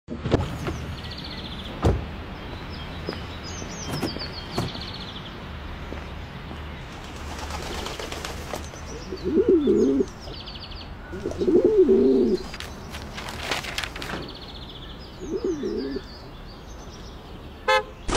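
A pigeon cooing three times, the coos spaced a few seconds apart, over steady street ambience with small birds chirping. A short car horn toot comes near the end.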